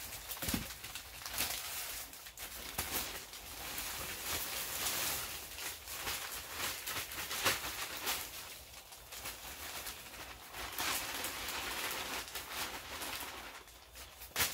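Potting mix pouring from a plastic bag into a plastic tote, a steady hissing rush through the middle, with the bag crinkling and a few knocks from handling the pots and tote.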